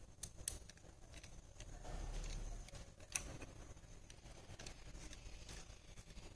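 Faint, scattered small metallic clicks and taps as a screwdriver is worked among the small bevel pinion gears of a steel model differential held in the hand, the sharpest click about three seconds in. A brief dull rumble comes about two seconds in.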